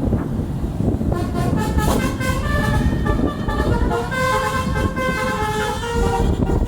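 Telolet musical horn on a Tunggal Jaya bus playing a quick tune of short stepped notes, starting about a second in, over a heavy low rumble.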